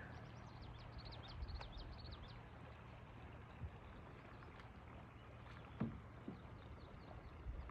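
Faint water sounds around a kayak on a calm lake: light lapping and dripping, with a few soft knocks about six seconds in.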